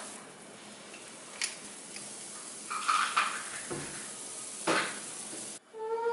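Pancake batter sizzling quietly in a nonstick multi-well pancake pan, with a few clinks of the metal batter scoop against the bowl and pan about 1.5, 3 and 4.7 seconds in. Near the end the sizzle cuts off suddenly and a held pitched sound begins.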